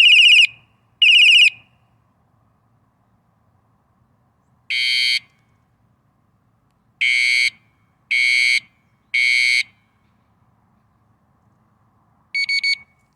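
Bike alarm tail light's built-in speaker sounding loud electronic alarm tones: two short warbling blasts at the start, a single blast about five seconds in, three steady beeps about a second apart a little later, and a quick triple chirp near the end. The remote's button is being held down to switch between the unit's three alarm sounds.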